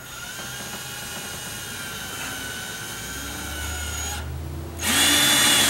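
Power drill/driver driving a screw into the metal housing sleeve of a window/wall air-conditioner: a steady motor whine for about four seconds, a brief stop, then a second, louder run snugging the screw down.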